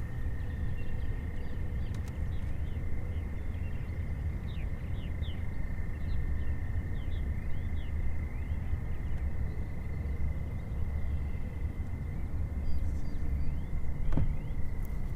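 Outdoor lake ambience: a steady low rumble under a thin, steady high-pitched tone. A run of quick bird chirps comes from about three to eight seconds in, and a single sharp click sounds near the end.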